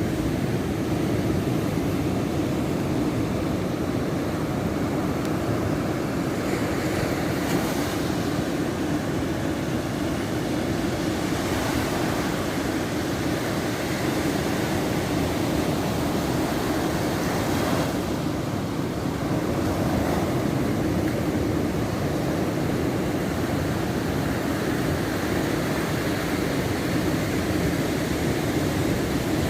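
Sea surf breaking on the shore with wind on the microphone: a steady rushing noise that swells a little about twelve seconds in and again about twenty seconds in.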